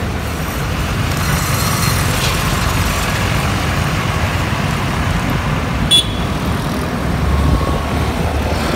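Busy street traffic heard from a moving motorcycle: a steady rush of engines, tyres and wind. A brief horn beep sounds about six seconds in, and a heavier low rumble comes near the end as a truck passes close alongside.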